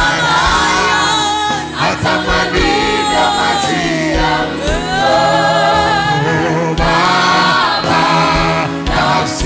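Gospel choir and lead singers singing a slow worship song in long, held and gliding notes.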